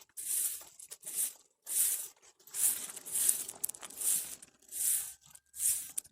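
Rhythmic swishing strokes, about one every 0.8 seconds, each a short hiss.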